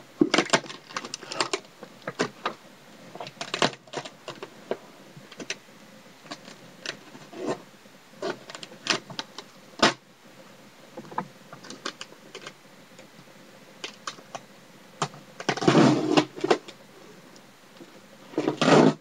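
Box being unpacked by hand: packing paper and cardboard crinkling and rustling in scattered short crackles and clicks, with two louder stretches of rustling near the end.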